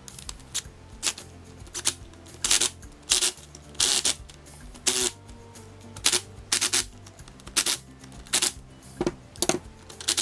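Cordless impact driver run in more than a dozen short bursts, driving the bolts back into a power steering valve.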